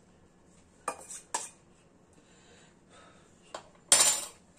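Stainless-steel saucepan clinking twice as the last of the sauce is scraped out of it over the gratin dish, then a louder clatter near the end as the pot is set down on the glass-ceramic hob.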